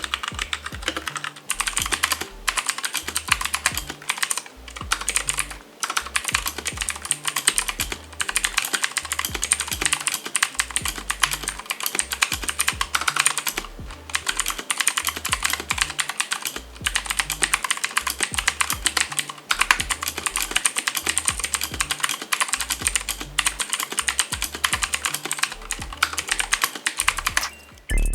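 Continuous fast typing on a Gigaware K28 budget mechanical keyboard resting directly on the desk without a deskmat: a dense stream of key clacks with brief pauses every few seconds.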